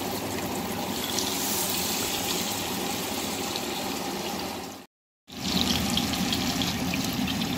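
Battered banana pieces sizzling as they fry in oil and butter in a wok. The sound cuts out for a moment about five seconds in, then comes back a little louder with small crackling pops.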